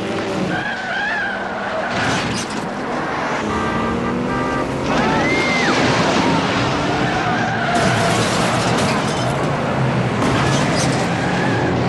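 Several small rally cars' engines revving as they race on an ice track, with tyres skidding on the ice. Engine pitch rises and falls throughout, and a short squeal sweeps up and down about five seconds in.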